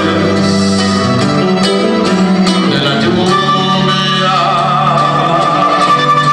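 Live norteño music: a button accordion playing the melody over strummed guitar and an electric bass line.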